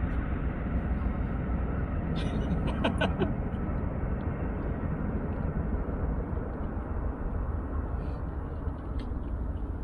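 Steady low rumble of a passing train, with a short cluster of clicks about two to three seconds in.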